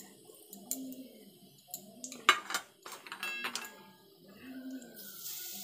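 A metal spatula and utensils clinking and scraping against a metal kadai while whole spices are tempered in oil, with a sharp clink a little over two seconds in and a ringing metallic clink just after three seconds. A steady hiss comes in near the end.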